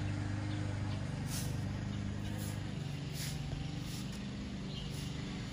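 An engine running steadily, a low hum that shifts slightly in pitch about halfway through, with short high hissing sounds every second or so.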